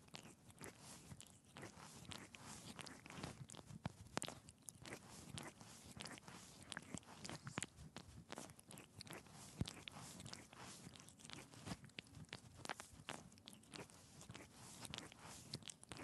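An animal licking its fur with its tongue, close up: a quiet, irregular run of small clicks from the tongue strokes.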